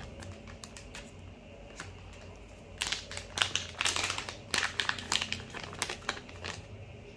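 Plastic packaging pouch for a hammer protection pad being handled and opened: crinkling, with a few light crackles at first, then a dense run of crinkling from about three seconds in until shortly before the end.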